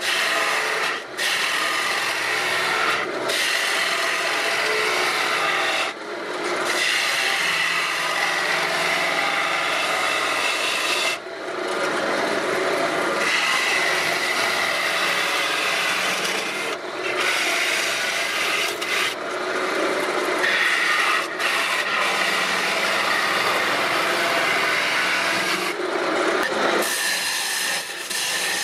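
Woodturning gouge cutting into a wood blank spinning on a lathe: a steady rasping scrape as shavings peel off, broken by short gaps each time the tool comes off the wood.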